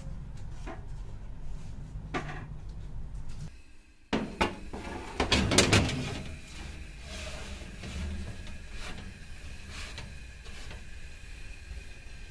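A foil tray on a metal baking sheet is pushed into an oven, making a cluster of knocks and clatter about four to six seconds in. A steady hum with a faint high whine follows.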